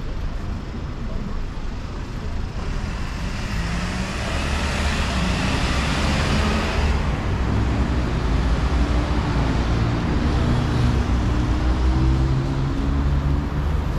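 Road traffic: cars driving past close by, with a steady low engine rumble. One car's tyre hiss swells and fades about four to seven seconds in.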